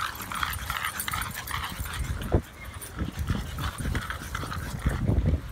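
A pack of leashed French bulldogs panting in quick, even breaths as they trot along. There is a sharp knock a little over two seconds in and low rumbling bursts near the end.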